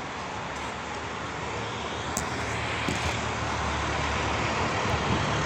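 Street traffic: a vehicle's steady engine hum and road noise that grow gradually louder as it approaches.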